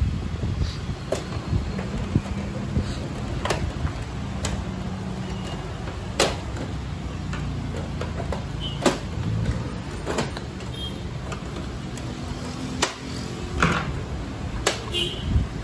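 Plastic outer casing of a Canon iP2870s inkjet printer being pried off by hand: about ten sharp plastic clicks and snaps, spread irregularly, as the cover's latches give. A steady low rumble underneath.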